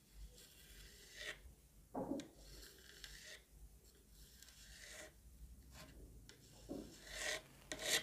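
Metal scraper tool rasping along the edge of a moulded kinetic sand figure in several short strokes, shaving off loose sand, the strokes loudest about two seconds in and near the end.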